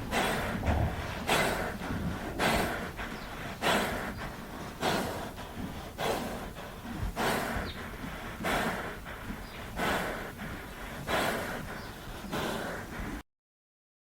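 A horse breathing heavily through its nostrils, with regular, even breaths a little over a second apart, about eleven in all. The sound cuts off abruptly to silence near the end.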